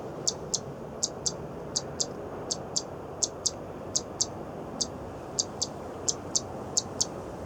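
Zitting cisticola calling: short, sharp high notes in pairs, a pair about every three-quarters of a second, over a steady low background noise.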